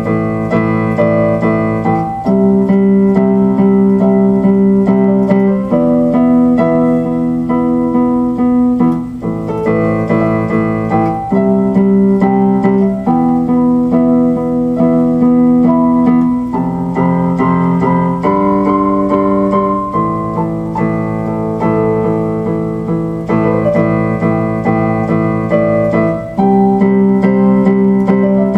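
Instrumental background music: held keyboard chords that change every two to three seconds.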